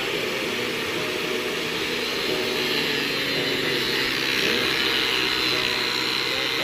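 Electric angle grinder with a flap sanding disc running steadily and sanding a coconut-wood plank.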